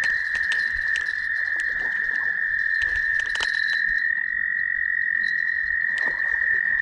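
Frog chorus trilling steadily in one unbroken high-pitched drone, with a few sharp clicks scattered through it.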